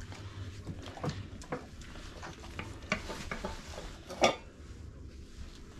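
Stainless steel dog bowls clinking and knocking as Labradors get at them: short, scattered clinks, the sharpest about four seconds in.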